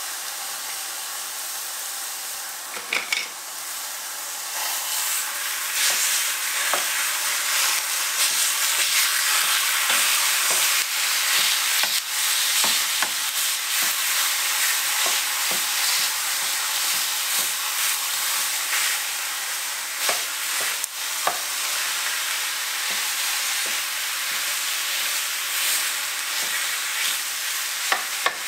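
Raw ground breakfast sausage sizzling in a hot cast-iron skillet: a steady frying hiss that grows louder a few seconds in as the meat is broken up. A spatula scrapes and clicks against the pan now and then.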